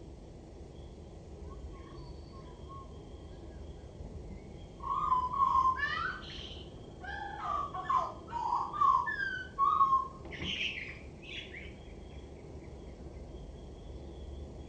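Male common blackbird (Turdus merula) singing: low, mellow fluting phrases mixed with higher squeaky twitters, starting about five seconds in and lasting around six seconds. Other birds chirp faintly in the background.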